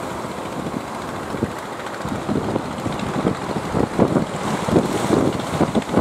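Strong wind buffeting the microphone, in irregular low gusty rumbles that grow busier in the second half.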